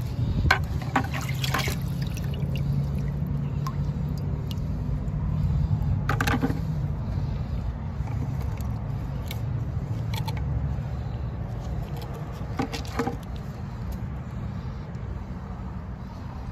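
Dirty drain water running out of a white PVC drain pipe into a bucket, over a steady low hum. A few short splashes or knocks come about half a second in, around six seconds and around thirteen seconds.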